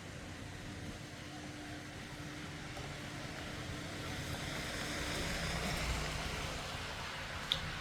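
Steady outdoor background noise, a hiss and rumble like distant traffic or wind, swelling slightly past the middle, with one brief sharp high click near the end.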